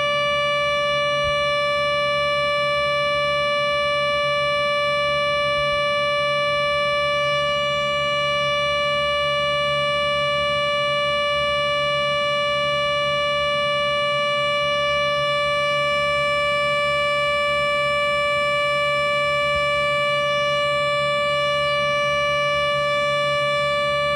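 Synthesized Federal Sign & Signal Thunderbolt 1000 siren played back from a laptop. It holds one steady siren tone with a ladder of overtones, neither rising nor falling, over a low steady rumble.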